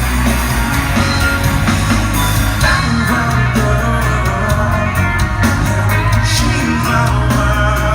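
A live band playing loud at a concert: heavy bass and guitar, with a singing voice in places.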